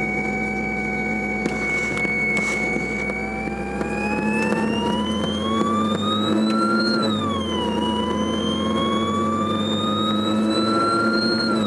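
Renault 21 Turbo-D's car radio giving off a whine whose pitch follows the diesel engine's revs. It holds steady, climbs for several seconds, falls back about two-thirds of the way through as at a gear change, then climbs again and falls right at the end, over the steady hum of the engine.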